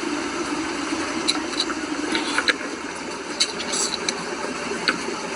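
A continuous spraying hiss with a few small clicks on top, cutting off suddenly near the end.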